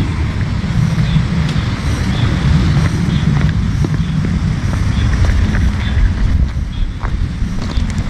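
Wind buffeting the camera microphone: a loud, fluttering low rumble. A faint high chirp repeats about once a second behind it.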